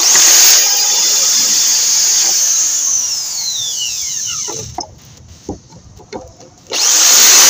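Corded electric drill running at full speed while boring a hole. About three seconds in the trigger is released and the motor winds down with a falling whine, a few light knocks follow, and the drill starts up again near the end.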